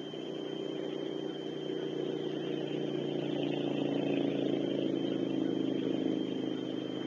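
A passing engine, growing louder over several seconds and then fading, over a steady high thin whine.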